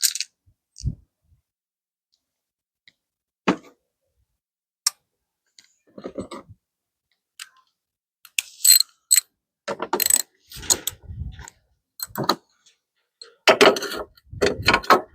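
Hand tools working on car bumper fixings: scattered metal clicks, clinks and short ratcheting rattles, coming more often in the second half.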